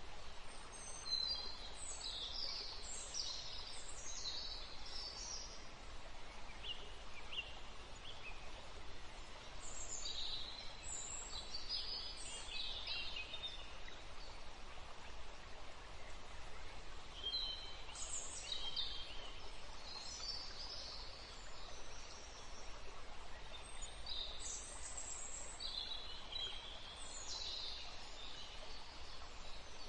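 Birds chirping in groups of short high calls every several seconds, over a steady background hiss.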